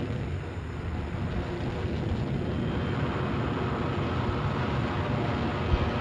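Steady low rumbling roar with no distinct tone, growing louder about a second in.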